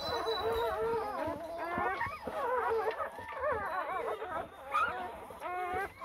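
Newborn puppies squealing and whimpering: several thin, wavering cries overlapping one another, with a short lull near the end.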